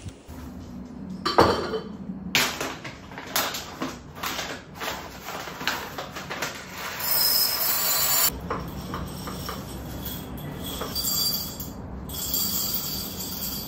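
Kitchen work: dishes, utensils and containers knocking and clattering in a series of short, irregular clicks, with a couple of brief stretches of steady hiss.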